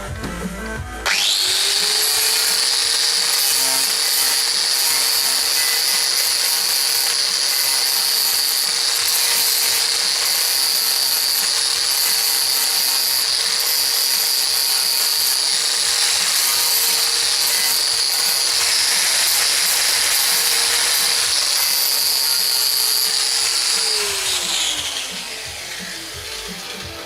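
Angle grinder switched on about a second in and running at a steady pitch as it grinds down blobs of solder over patched holes in a car body panel, then switched off near the end, its pitch falling as it winds down.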